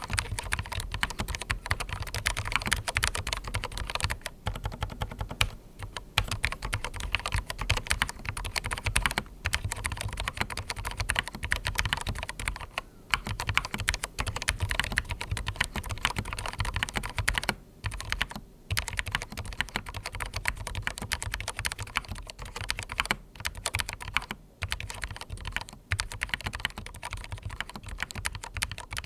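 Continuous fast typing on a darkFlash DFS99 low-profile mechanical keyboard with red linear switches, internal sound-dampening foam and PBT keycaps: a dense, even stream of keystroke clacks, broken now and then by brief pauses.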